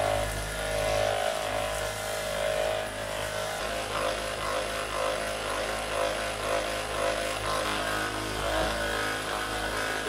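A small motor running with a steady low hum.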